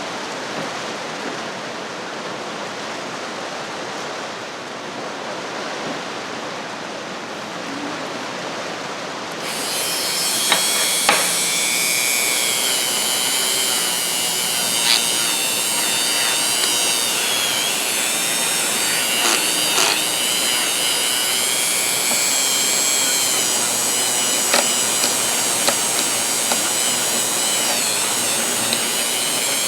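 Steady rain for about the first nine seconds, then a Dremel rotary tool starts up with a high whine that wavers in pitch as its wire wheel cleans the inside of a ratchet head, with a few sharp ticks.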